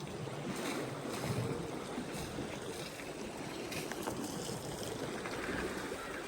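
Wind buffeting the microphone as a steady low rumble, with a few faint ticks or rustles.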